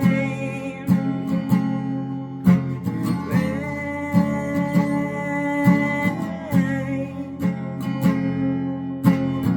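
Acoustic guitar music: chords strummed at a steady rhythm with sustained ringing notes.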